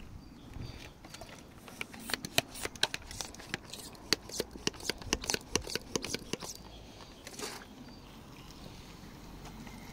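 Hand-pump pressure sprayer on a plastic bottle being worked by hand: a run of sharp plastic clicks, about four a second, for several seconds, then a short hiss.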